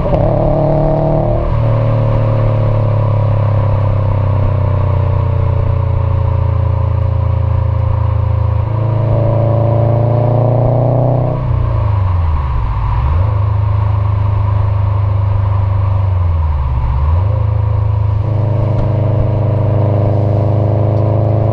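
2018 Subaru STI's turbocharged flat-four engine running through an Invidia R400 cat-back exhaust while driving, a loud, steady exhaust note. The revs drop and rise again several times, with a jump up about nine seconds in and again near the end.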